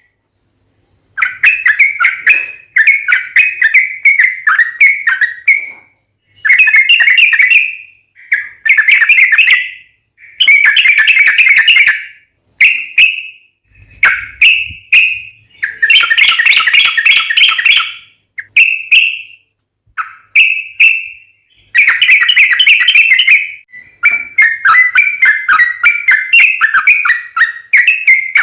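Yellow-vented bulbul song: rapid, bubbly chattering phrases, each a second or two long, with short pauses between them.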